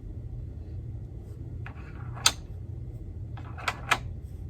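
A few sharp clicks and knocks from the plastic Fisher-Price Stroll & Learn walker toy being handled, the loudest a little over two seconds in and two more close together near the end, over a steady low hum.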